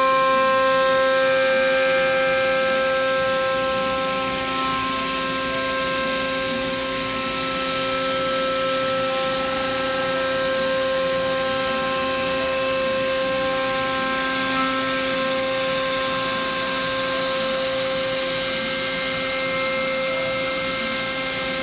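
Spindle of a 2015 KOMO XL 524 four-axis CNC router running with a steady high whine of several pitches over a constant rush of noise as the head travels along an aluminium extrusion, milling it.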